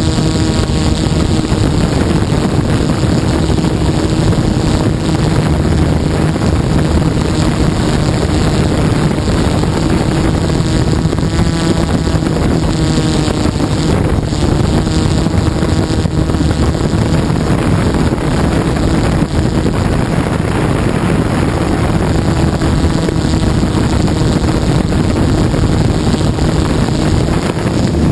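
DJI F550 hexacopter's six brushless motors and propellers running in flight, heard from the camera on board as a loud, steady hum, with wind buffeting the microphone.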